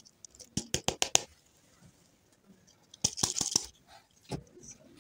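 Plastic wrapping on a surprise lollipop ball being handled and peeled. A quick run of sharp plastic clicks comes about half a second in, a crinkly rustle around three seconds, and a single click after four seconds.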